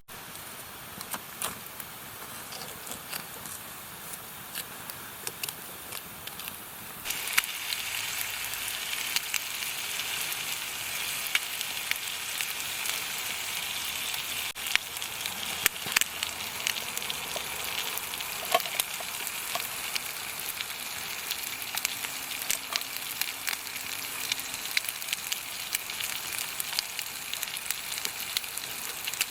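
Sizzling and crackling over a campfire: a steady hiss with frequent sharp pops. It gets louder suddenly about seven seconds in.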